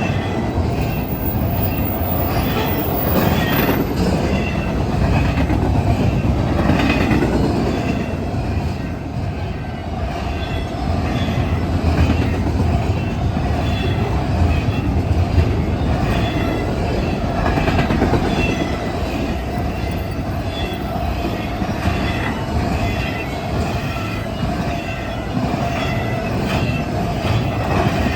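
A fast freight train rolling past: a steady roar of wheels on rail with repeated clicks over the rail joints and faint squealing of the wheels.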